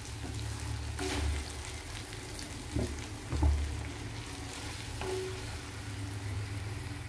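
Clams in a thick masala sizzling in a pan while a wooden spatula stirs and scrapes through them, knocking against the pan a few times, over a low hum.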